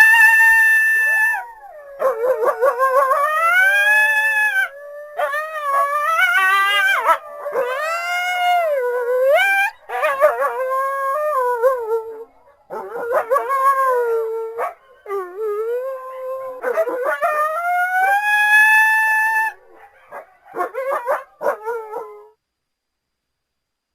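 Coyote howling: a series of long, wavering howls that glide up and down in pitch, separated by short breaks, with a few shorter yips near the end.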